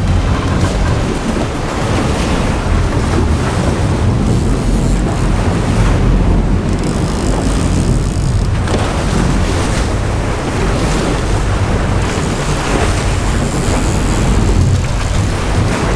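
Wind buffeting the microphone over the steady low rumble of a sportfishing boat's engines, with seawater rushing and churning at the stern.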